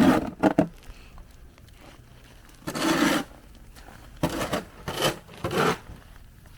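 Deep snow crunching and scraping in about five short, uneven strokes, the loudest around three seconds in, as it is trodden or pushed through.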